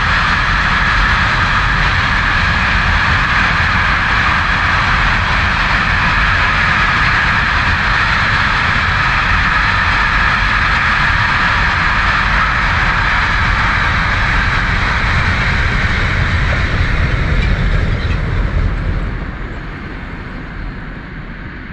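A train passing close by, a loud steady rumble and rolling noise of wheels on rails. It eases off about 19 seconds in as the end of the train goes by, then fades away.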